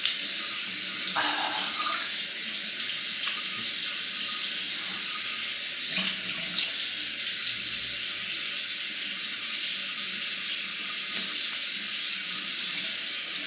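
Bathroom sink tap running steadily, for a rinse after the first pass of a wet shave.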